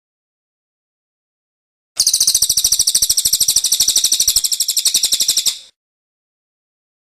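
Small songbird's rapid, high-pitched trill, about a dozen notes a second, starting about two seconds in and lasting about three and a half seconds before stopping.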